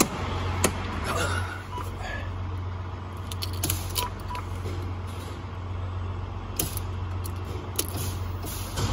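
Low, steady engine hum heard inside a truck cab. About four seconds in come two short electronic beeps, and there are scattered clicks as the ignition key is handled.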